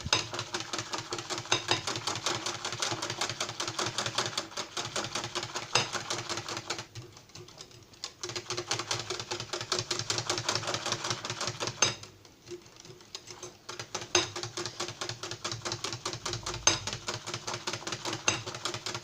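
Hand whisk beating a milk and yogurt mixture in a bowl: fast, even clicking of the wires against the bowl, with two short pauses about seven and twelve seconds in.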